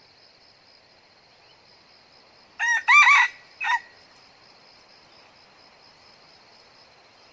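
A junglefowl cock crows once, a short three-part crow about two and a half seconds in. Under it runs a steady high insect buzz.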